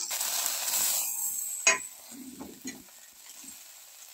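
Thankuni-leaf fritters sizzling in oil on a hot tawa while a metal spatula turns them over. The sizzle is loud at first and drops away after a sharp clack of the spatula on the griddle about a second and a half in, followed by soft scrapes and knocks as the fritters are flipped.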